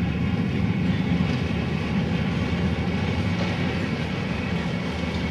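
Electric narrow-gauge railcar and open-sided coaches climbing a grade, giving a steady running rumble with a faint high whine above it.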